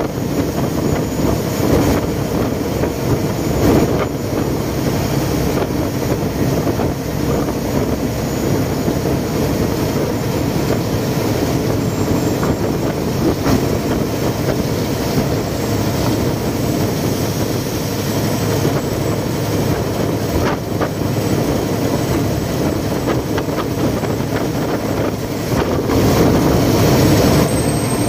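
Khlong Saen Saep express boat's diesel engine running steadily under way, with rushing water along the hull. It gets a little louder near the end.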